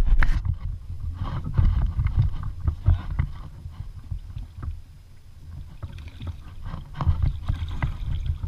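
Kayak on the water: water sloshing and splashing against the hull, with scattered light knocks and a steady low rumble of wind on the microphone.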